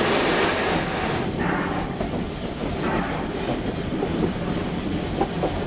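Cab noise of a 1922 Baldwin 2-8-2 steam locomotive rolling slowly: a steady rumble and clatter of the running gear, with a hiss of steam that swells about every second and a half.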